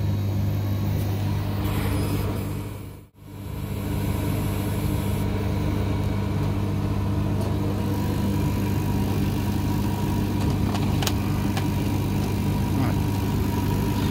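K40 CO2 laser cutter running a cut: a steady electrical hum from its fan and pumps. The hum briefly drops out about three seconds in, and a few faint ticks come through later.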